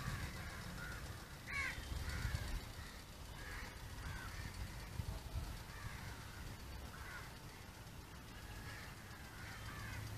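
Crows cawing again and again, short calls one after another, over a low rumble.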